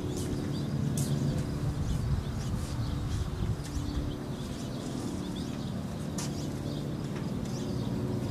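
Engine of a vintage single-engine propeller aircraft running at low power as it taxis, heard as a steady low drone from afar, with short bird chirps on top.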